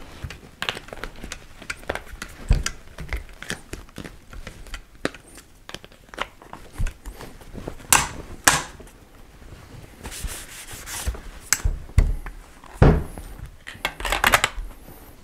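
Clicks, knocks and rubbing of a FAMAE SG-540 rifle's handguards being fitted back onto the rifle, with several sharper knocks among them.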